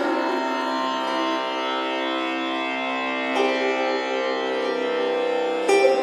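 Instrumental background music: plucked strings over a steady sustained drone, with fresh plucked notes struck at the start, about three and a half seconds in, and just before the end.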